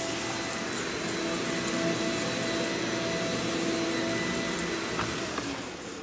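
Hoover backpack vacuum cleaner running with a steady motor whine, its wand and floor tool pushed back and forth over low-pile carpet. There are a couple of light knocks about five seconds in.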